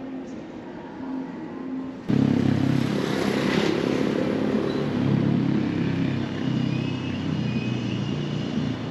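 A quiet room tone for about two seconds, then a sudden cut to loud, steady city traffic: a rumble of engines going by.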